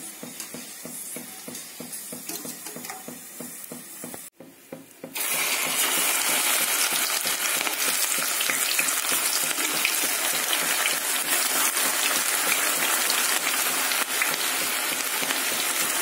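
Battered okra (bhindi) deep-frying in a pan of hot oil: a dense, steady sizzle of bubbling oil. It is fainter for the first few seconds, then after a brief gap cuts in much louder about five seconds in.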